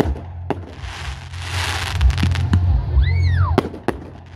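Aerial fireworks bursting: several sharp bangs, with a stretch of dense crackling from the star bursts in the first half. About three seconds in, a whistle glides up and then falls steeply, followed by two more sharp bangs.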